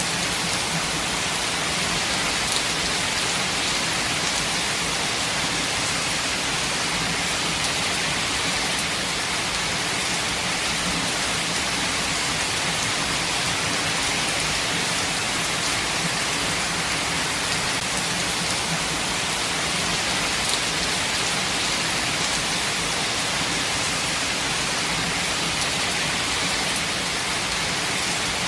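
Steady rain falling in a forest, an even hiss with no breaks.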